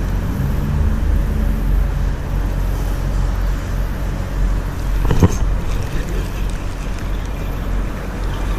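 Steady low rumble with a single sharp click about five seconds in.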